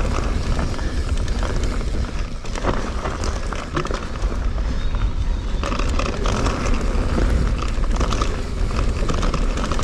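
Electric mountain bike descending a loose, rocky trail: tyres crunching over gravel and rock, and the bike clattering with many small knocks and rattles, including the rattle that the Fazua 60 motor makes on descents. Heavy wind rumble on the microphone runs underneath.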